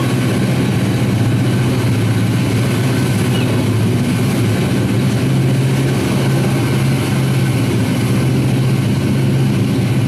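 Piston radial aircraft engines and propellers droning steadily with a constant low hum.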